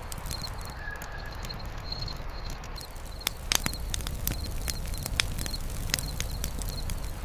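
Wood campfire crackling, with irregular sharp pops and snaps over a steady hiss. A short high chirp repeats every half second or so behind it.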